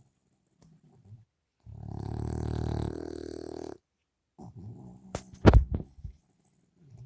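A sleeping dog snoring loudly: one long snore of about two seconds. A few seconds later come softer noises and two sharp clicks, the loudest sound, about five seconds in.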